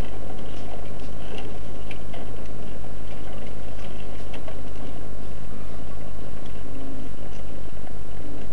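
Steady hiss and heavy low hum with a thin steady tone above, and faint scattered clicks, the noise of a worn recording with no clear event in it.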